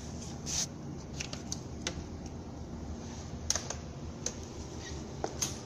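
Irregular light clicks and taps from crib parts being handled and fitted together during assembly, over a steady low hum. The sharpest clicks come about half a second in and about three and a half seconds in.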